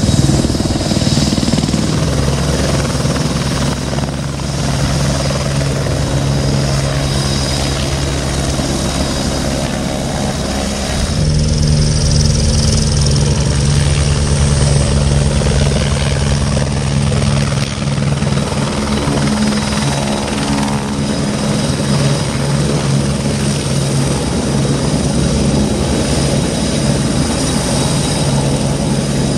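Airbus Helicopters AS355 Ecureuil 2 TwinStar twin-turbine helicopter hovering close by: steady rotor and turbine sound with a thin high whine over it. The sound changes abruptly about eleven seconds in.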